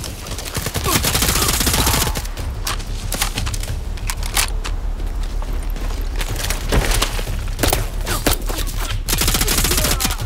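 Rapid gunfire-style blaster shots fired in bursts, with a dense volley about a second in and another near the end, and scattered single shots between.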